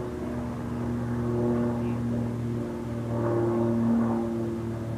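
Cessna 172S Skyhawk SP's four-cylinder Lycoming engine and propeller droning steadily as the plane climbs away after take-off, swelling slightly about a second in and again near four seconds.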